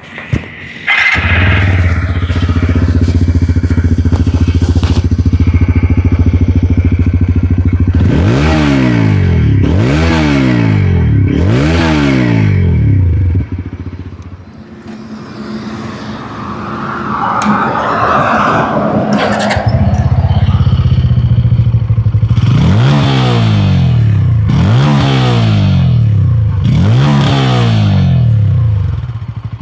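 Exhaust notes of two single-cylinder 160 cc motorcycles, a Bajaj Pulsar N160 and a TVS Apache RTR 160 4V, each idling and then blipped three times. The second engine idles at a slightly higher pitch. A short scraping noise sounds in the gap between them.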